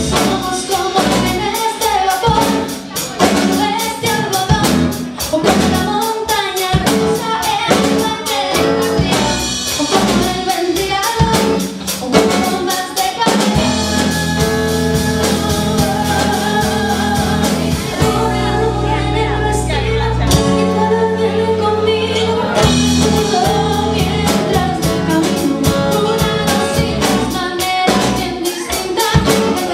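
Music: a song with singing over a steady drum beat, with a short break of held low notes about two-thirds of the way through.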